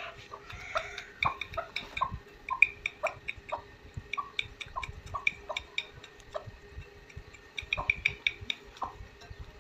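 A hen pecking pearl millet from a bowl: quick, irregular taps of her beak on the grain and the bowl, a few a second.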